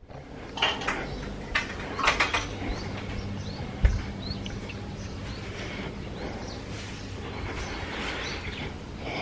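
Birds chirping in short, quick rising calls over a low steady hum, with a few sharp knocks in the first couple of seconds and one loud thump about four seconds in.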